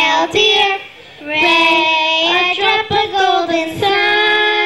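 Young girls singing into handheld microphones, holding long notes, with a short break about a second in.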